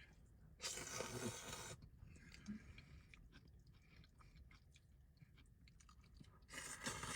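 Person eating noodles: two slurps, one about a second in and one near the end, with faint chewing between.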